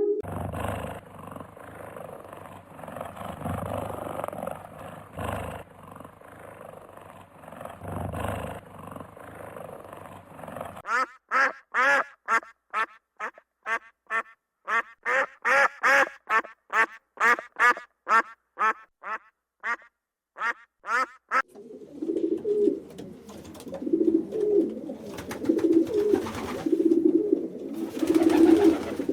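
A series of different animal calls. A noisy stretch comes first, then about ten seconds of short pitched calls repeated about twice a second, then a run of lower repeated calls.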